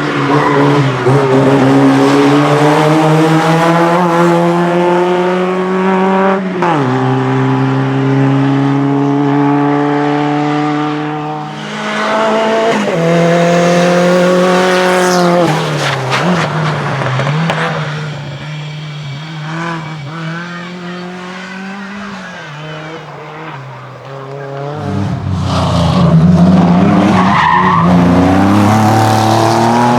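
Race car engine accelerating hard, its revs climbing and then dropping sharply at each gear change. It falls away to a quieter, distant sound for several seconds, then comes back loud and revving up again near the end.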